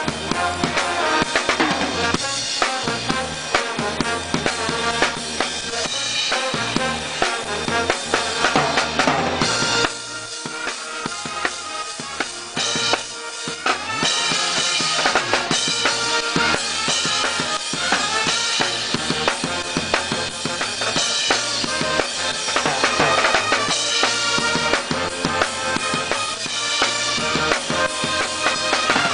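Percussion music: drums playing a busy rhythm with pitched parts over it, easing briefly about ten seconds in.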